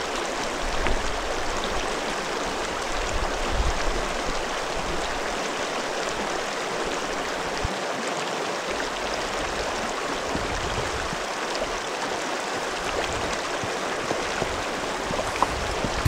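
Shallow mountain stream flowing over rocks, a steady rushing burble. A couple of low thuds stand out in the first few seconds.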